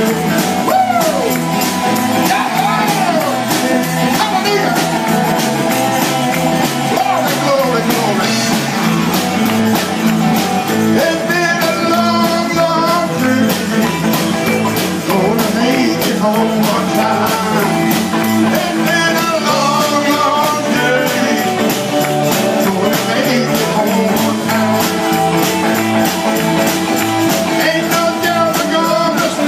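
Live band playing with electric and acoustic guitars and a steady beat, while a man sings into a microphone over it.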